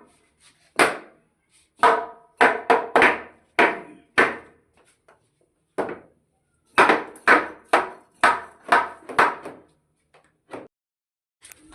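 Hammer blows on wood: sharp, irregular strikes in two runs, about half a dozen in the first four seconds, then after a short pause another quick run of five or six, with a last single blow near the end.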